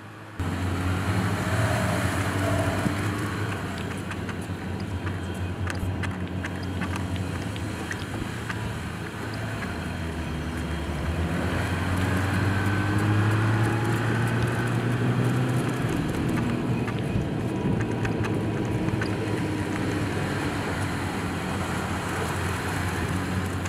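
Jeep Gladiator Mojave pickup driving fast on loose desert sand, its engine running under load with the pitch rising and falling as it accelerates and eases off, over a rushing noise from the tyres and scattered ticks.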